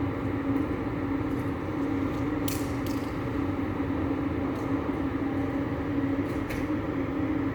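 Wind buffeting the microphone as an uneven low rumble, over a constant steady hum, with a couple of faint ticks.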